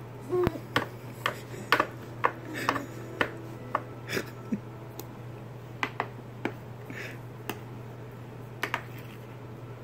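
Irregular sharp clicks and taps, a dozen or so, from a plastic baby spoon knocking against a plastic high-chair tray and the baby's mouth during spoon-feeding, over a steady low hum.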